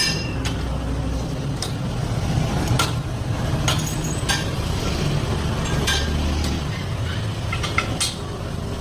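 Ironworker machine running with a steady low hum, with scattered sharp metal clinks and knocks from the steel tube and punch tooling.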